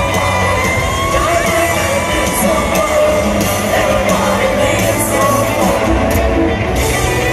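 Live rock band playing loudly in an arena, recorded from within the crowd: piano, a sustained electric guitar lead with bent notes, and a male voice singing, with yells from the crowd.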